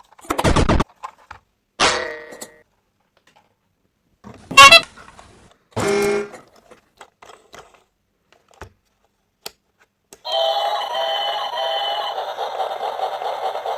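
Several short electronic sound effects separated by silent gaps, then a busy repeating tune starts about ten seconds in.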